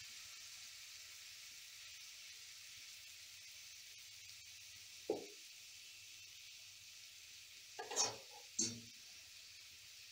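Masala-coated red snapper pieces shallow-frying in a little hot oil, a low steady sizzle. Three brief sharp sounds break in, one about halfway and two close together near the end.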